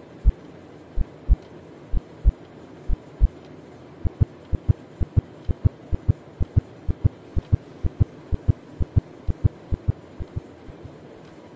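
Heartbeat sound effect: low double thumps about once a second that speed up about four seconds in to roughly twice that rate, then fade out and stop near the end.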